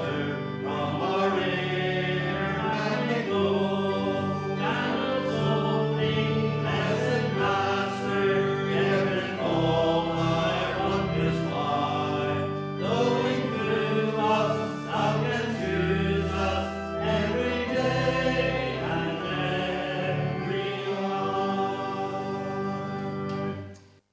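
A worship song: several voices singing together over sustained instrumental chords. It cuts off abruptly just before the end.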